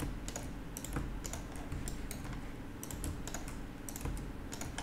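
Irregular computer-keyboard keystrokes and clicks while working in Blender, over the steady whir of a laptop cooling fan.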